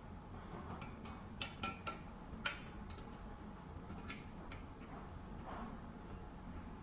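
Light, scattered clicks and taps of metal parts being handled as screws lock the basket onto the trolley's mounting brackets, with several clicks close together early in the sound and two more a couple of seconds later.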